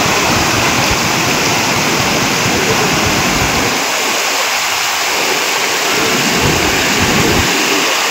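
Fast, muddy floodwater rushing steadily through a breach in an embankment road.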